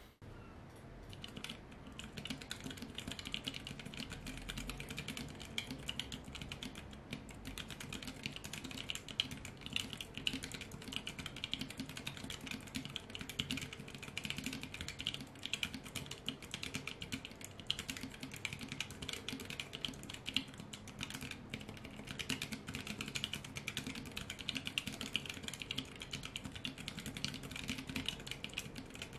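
Fast touch-typing on a Ferris Sweep split keyboard with Kailh Choc Brown low-profile tactile switches: a rapid, continuous run of key clicks that starts about a second and a half in.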